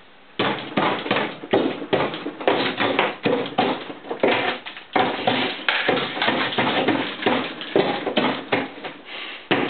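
Ice being chipped and scraped loose inside a frozen-up freezer compartment: a continuous, irregular run of sharp knocks and scrapes.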